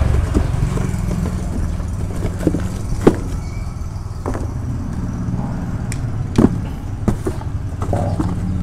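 Knocks, clicks and cardboard rustling as an amplifier board with a heavy toroidal transformer is handled and lifted out of its cardboard box. Two sharp knocks stand out, about three seconds in and about six and a half seconds in. A steady low rumble runs underneath.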